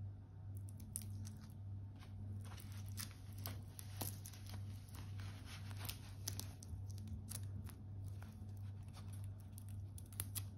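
Stainless steel link bracelet of a Hugo Boss Globetrotter chronograph clicking and rattling in quick, irregular ticks as it is handled and fitted around the watch box's cushion, over a steady low hum.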